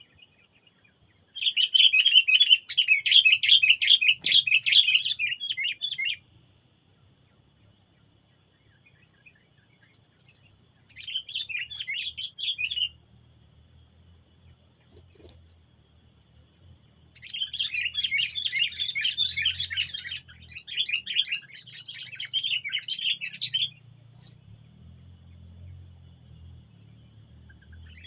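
A songbird chattering in three rapid, busy bursts: a long one early, a short one mid-way and another long one later. A faint steady high tone lies underneath.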